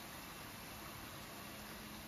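Bara deep-frying in plenty of hot oil, a faint, steady, even sizzle.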